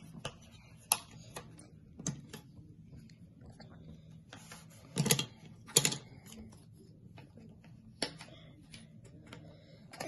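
Jigsaw puzzle pieces being handled and pressed into place: scattered clicks and taps, with two louder scraping rustles about five and six seconds in.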